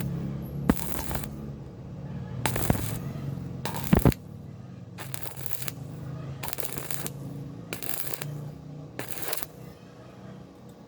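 Electric arc welding in short stitches: about seven brief crackling bursts of arc, each about half a second long and spaced a little over a second apart, over the steady low hum of the welder, as weld is built up to fill a cavity in cast iron.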